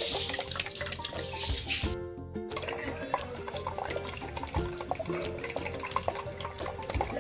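Water trickling and splashing steadily from a small tabletop Shivling fountain, under background music.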